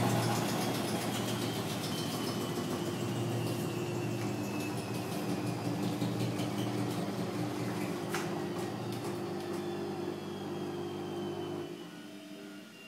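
Electrolux front-loader washing machine spinning, a steady low hum with a motor whine that slowly falls in pitch as the drum winds down; the low hum stops near the end.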